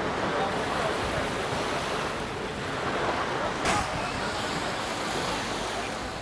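Surf washing onto a beach with wind on the microphone, and a short click about three and a half seconds in.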